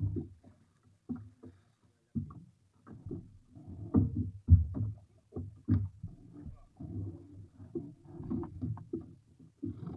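Irregular low thumps and knocks aboard a small fishing boat as a prawn gill net is hauled in by hand, with wind buffeting the microphone; the heaviest thump comes about halfway through.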